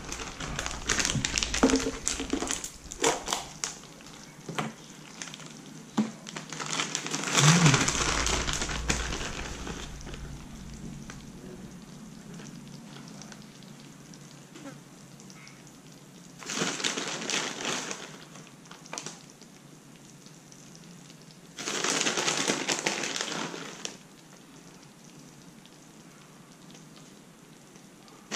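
Crinkling and rustling with scattered clicks and knocks as more cheese is put on top of the baked eggplant parmesan. Later come two more bursts of rustling, each about two seconds long.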